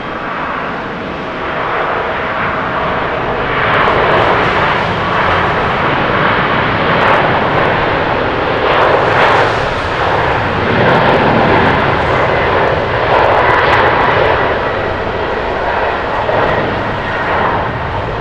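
Boeing 777-300 twin-engine jet airliner on its takeoff roll at takeoff thrust. The jet engines give a broad roar that grows louder over the first few seconds as the plane passes, then holds with slow swells as it lifts off.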